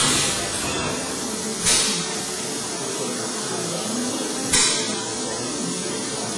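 Fanuc Robodrill CNC milling machine at work drilling crankshaft oil holes: a steady machine noise with short, sharp bursts of hiss about a second and a half in and again near the end.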